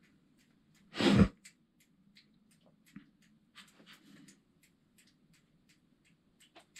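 A single short, sharp burst of breath from the angler close to the microphone about a second in, with faint scattered ticks before and after it.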